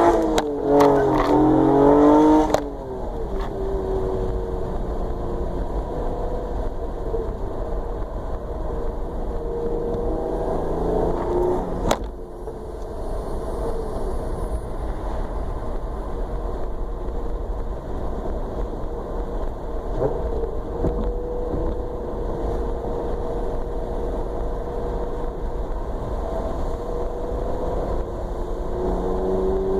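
A motor vehicle running with a steady low rumble. For the first two and a half seconds it is louder, with shifting pitch, then settles into an even drone.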